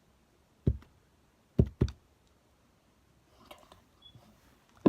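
A few short, sharp knocks and clicks: one about two-thirds of a second in, a quick pair about a second later, and another at the very end, with quiet between them.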